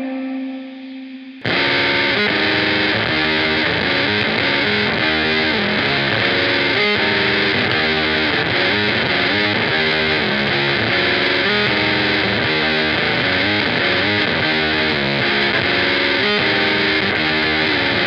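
Semi-hollow electric guitar played through SiClone, Sono and Surplus fuzz and modulation pedals. A held note dies away, then about a second and a half in a heavily distorted, fast repeating riff starts abruptly and keeps going.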